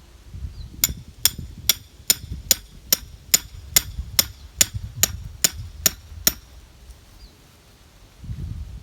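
A 3-pound mini sledge striking a rebar stake, driving it into the ground. There are about fourteen evenly spaced metallic clanks, two or three a second, which stop after about six seconds.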